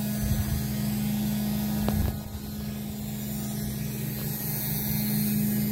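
Steady low hum of electric paddlewheel aerators running on a shrimp pond, with a single knock just before two seconds in.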